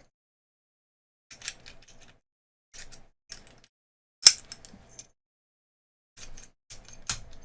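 Metal clicks and rattles of a reassembled American Lock 1100 padlock being worked with its key, the key going in and turning to test the lock. The sounds come in short bursts, with one sharp click about four seconds in.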